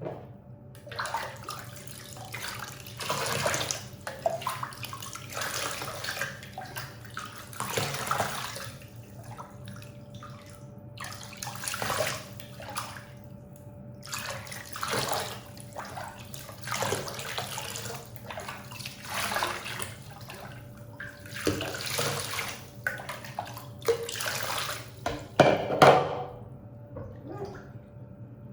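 Water splashing and pouring in repeated bursts, each about a second long, as a toy poodle is washed in a bathtub, over a faint steady hum.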